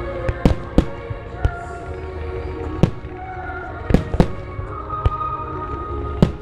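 Firework shells bursting in a starmine display: a series of sharp bangs, about nine, irregularly spaced. Behind them plays music with long held tones.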